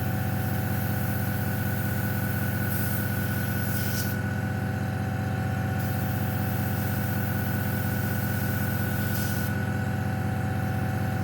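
Airbrush compressor running with a steady hum, with the hiss of air and paint from the airbrush coming and going as the trigger is pressed for light spray passes, strongest about three to four seconds in and briefly again near the end.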